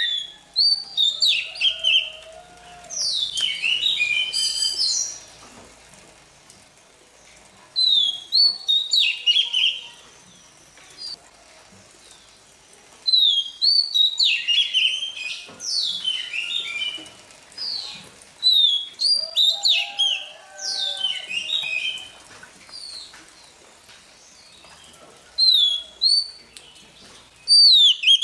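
Oriental magpie-robin singing: phrases of clear whistled notes with quick up-and-down sweeps, each burst lasting a couple of seconds and repeated every few seconds with short pauses between.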